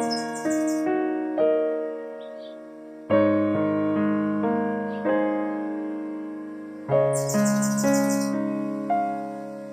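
Slow solo piano background music, notes and chords struck and left to fade. Twice, near the start and again about seven seconds in, there is a brief burst of rapid, high-pitched chirping.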